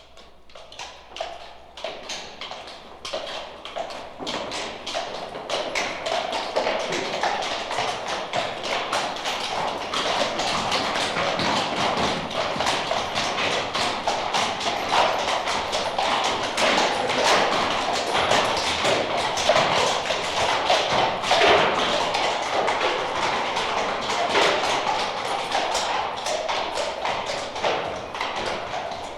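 A mounted troop of horses walking through an alley, many shod hooves clip-clopping and overlapping on hard pavement. The hoofbeats start faint and build over the first several seconds, then keep up a steady, dense clatter.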